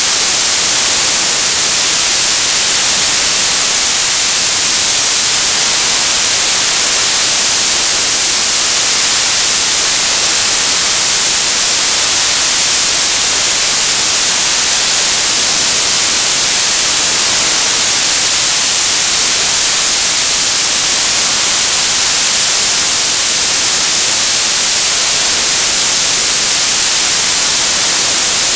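Television static: a loud, steady hiss of white noise, brightest in the treble, with no change or break.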